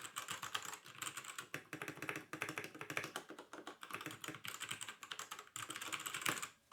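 Rapid typing on a Havit KB498L 60% mechanical keyboard with brown switches: a fast, continuous run of key presses, pausing briefly near the end.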